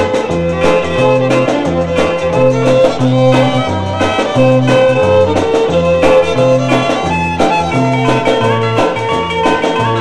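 Instrumental break of an old pop song played from a 45 rpm vinyl single: a bass line stepping about twice a second under a steady drum beat, with a long held lead note over the first two-thirds.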